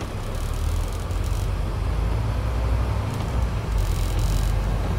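Scania E400 double-decker bus's diesel engine pulling away under load, heard from inside the upper deck; the engine sound grows louder about half a second in as the bus accelerates, then runs on steadily.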